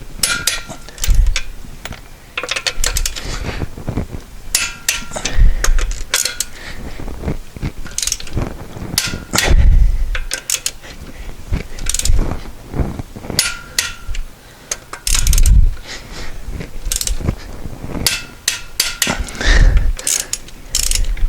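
Torque wrench ratcheting as the wheel bolts are tightened to 133 ft-lb (180 N·m): repeated runs of sharp ratchet clicks, with a heavy knock about every four seconds, five in all.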